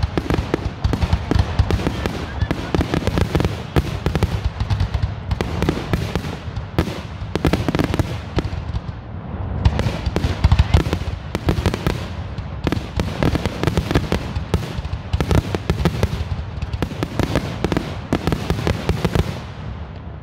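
Aerial firework shells bursting in a dense, rapid barrage, with bangs and crackles overlapping with hardly a gap. This is the closing barrage of the display.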